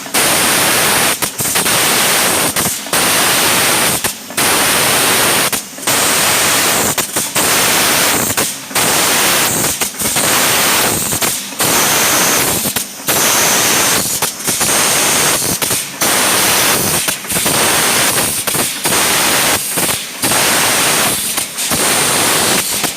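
Automatic polyurethane foam filling machine running: a loud, steady hiss broken by brief dips about every one and a half seconds, in an even repeating cycle.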